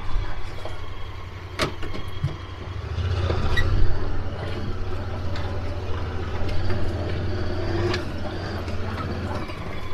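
Side-by-side utility vehicle's engine running steadily as it drives a dirt trail, with a few sharp knocks along the way.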